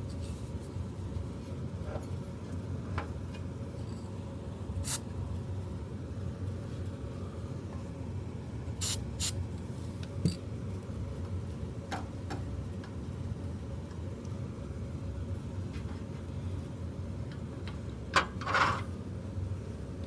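Hands working a shop rag over a space heater's cross-flow blower and its motor bearing ends: scattered light clicks and taps of the metal parts, and a brief rubbing scrape near the end, over a steady low hum.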